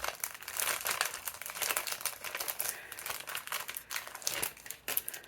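Scrapbook papers and pieces being handled and shuffled on a layout: a steady run of quick rustles and crinkles.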